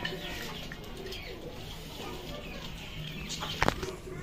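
Birds calling: low drawn-out cooing with faint high chirps, and one sharp click near the end.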